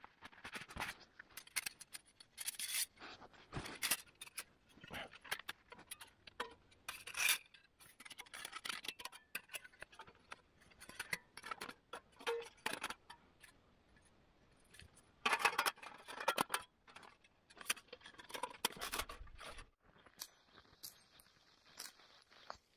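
Thin metal panels of a folding wood-chip camp stove clicking, clinking and scraping as it is slid out of its fabric pouch and unfolded by hand, with a busy run of clatter about two-thirds of the way through.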